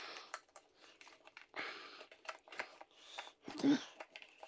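Small parts and screws clicking and rattling as they are handled during reassembly of an RC truck's steering, with a brief rustle a little before the middle and a louder knock near the end.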